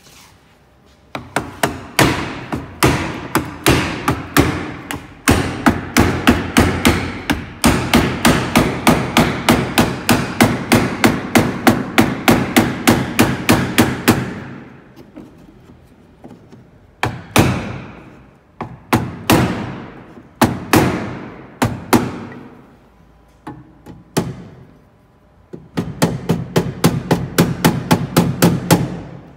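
Hammer blows on a wooden block held against the steel window frame of a Ford Explorer door. They come in fast runs of about three a second, with a short pause and a few slower single blows in between. The frame is being knocked outward to widen the channel for thicker ballistic glass.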